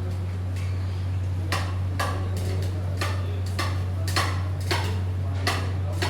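Irregular clinks and clatter of utensils, several in quick succession in the middle, over a steady low hum.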